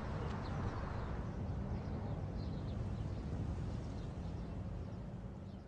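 Outdoor ambience: a steady low wind rumble with faint, scattered bird chirps.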